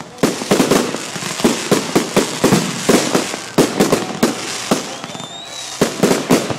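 Fireworks display: a rapid run of sharp bangs and crackling bursts, several a second, with a short rising whistle about five seconds in.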